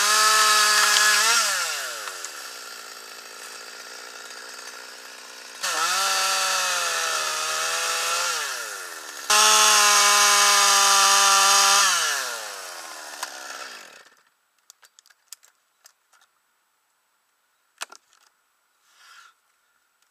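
Stihl MS 200T top-handle two-stroke chainsaw revving to full throttle in bursts, its pitch sagging under load as it cuts deadwood, and dropping back to a lower idle between. About two thirds of the way through the engine winds down and stops, leaving only a few faint clicks and knocks.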